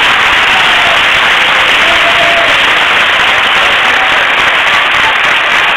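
Audience applauding steadily and densely.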